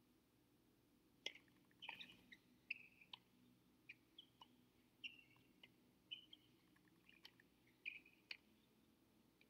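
Faint sounds of a tennis rally on a hard court: sharp clicks of racquet strikes and ball bounces about every half second, with short high-pitched squeaks of shoes on the court surface.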